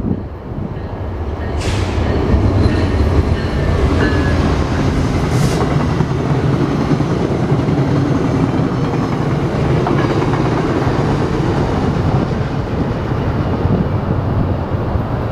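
Passenger train passing on a nearby track: a steady loud rumble of wheels on rails that builds over the first couple of seconds, with two brief hisses early on.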